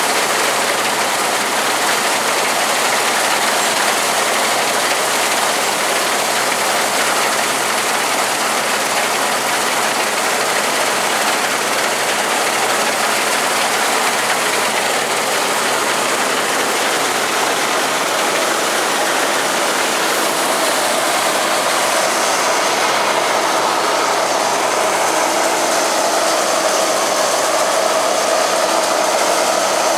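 Rostselmash Vector 420 combine harvester at work cutting and threshing grain, heard from on the machine: a loud, steady mechanical din of the diesel engine, header and threshing drum. About two-thirds of the way through, a faint steady whine joins it.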